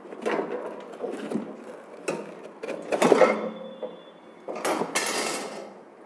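Black iron wire plant stands being handled in a cardboard box: metal rods knocking and scraping against each other and the cardboard in a series of sudden clatters, the loudest about three seconds in, with a longer scrape near the end.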